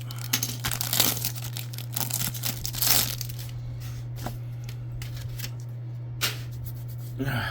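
Foil trading-card pack wrapper being torn open and crinkled by hand: a dense flurry of tearing and crackling for the first few seconds, then quieter, sparser handling. A steady low hum runs underneath.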